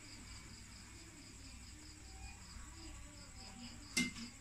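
Faint steady hiss with a soft, evenly pulsing high tone, then a single sharp click about four seconds in as the perforated metal skimmer holding the fried curry puff knocks against the wok.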